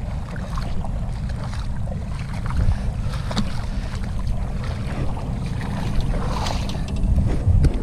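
Steady wind rumble on the microphone, with scattered light clicks and knocks.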